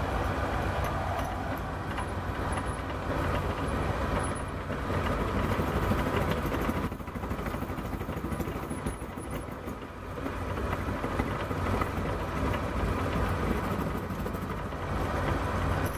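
Milling machine running, its cutter taking a shallow cut across the end of a screw shaft to mill a square drive: a steady motor hum under a rough, continuous cutting noise that eases briefly a few times.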